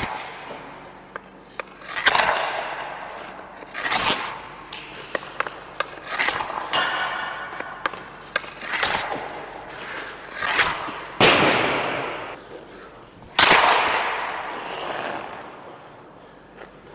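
Hockey shots taken in quick succession with a CCM FT6 Pro Jetspeed stick: a sharp crack of blade on ice and puck roughly every two seconds, the louder ones ringing on in the rink.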